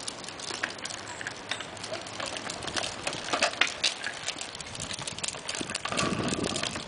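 Children's plastic tricycle and small training-wheel bike rolling over a concrete sidewalk: hard wheels clattering and ticking irregularly, with more rumble near the end.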